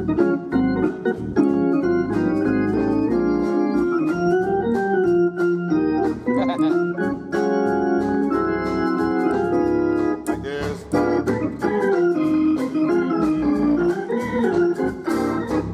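Hammond organ played with both hands: sustained gospel chords that keep shifting, with small added tones worked into the voicings as flavour instead of fast runs. Many notes start with a short click.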